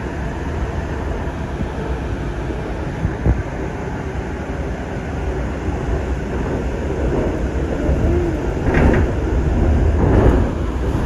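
Sound Transit Series 2 light rail train running, a steady low rumble with a single knock about three seconds in and louder clattering near the end.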